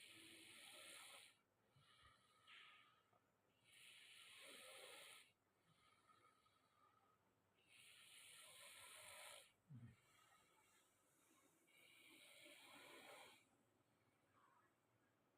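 A sleeping man snoring faintly: slow, breathy snores about every four seconds, with fainter breaths between them and one short low grunt about ten seconds in.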